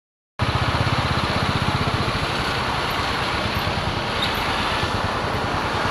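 Royal Enfield single-cylinder motorcycle engine running with a fast, even low thump, mixed with wind and road rush as the bike rolls along. The sound starts abruptly, and the thumping is clearest at first before blending into the steady rushing.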